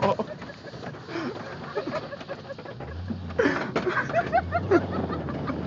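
Birds chirping in many short calls, with a low engine hum that comes in about halfway.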